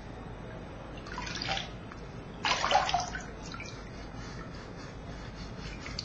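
Water splashing and dripping in a basin as a soot-blackened metal pot is dipped in baking-soda water and rubbed clean by hand, with a louder splash about two and a half seconds in.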